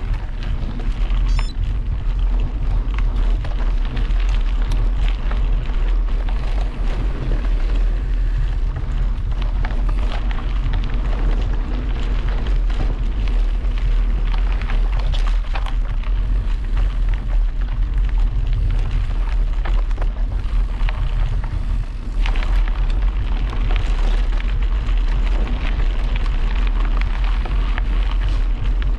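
Wind buffeting an action camera's microphone while a mountain bike is ridden along a trail: a steady loud rumble with many small knocks and rattles from the bike over the ground.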